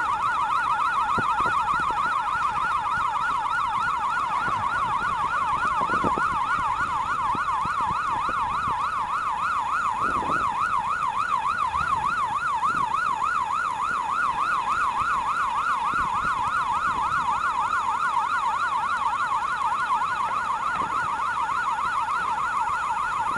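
Gantry crane's warning siren sounding continuously: a fast, even warble, about three wobbles a second, the usual signal that the crane is travelling along its rails.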